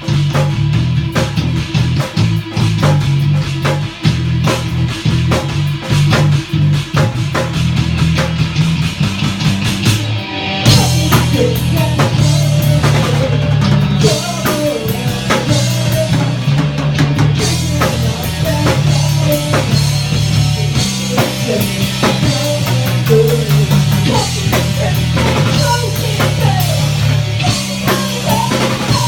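Rock music with drum kit, bass and guitar, the full band playing; the arrangement gets denser about ten seconds in.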